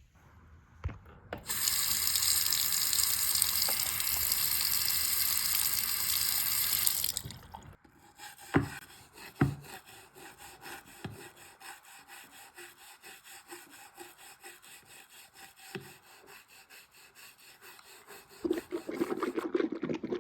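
Water running steadily from a tap into a sink for about six seconds, then shut off. Scattered drips and a few light knocks follow, with a louder watery sound starting near the end.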